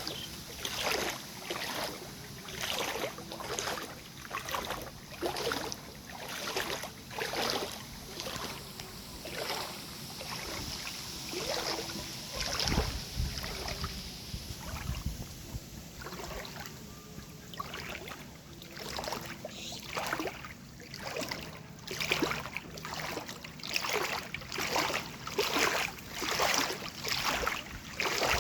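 Water splashing and swishing in a steady rhythm of about one stroke a second, with a louder low thump about 13 seconds in and slightly quicker strokes in the second half.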